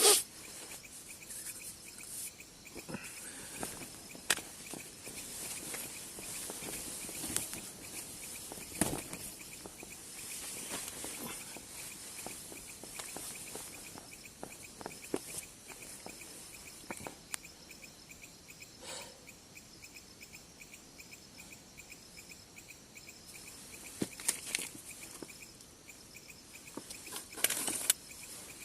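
Night insects, crickets, chirping in a rapid, even, steady pulse, with scattered rustling and handling clicks close by; the loudest clicks come at the very start and just before the end.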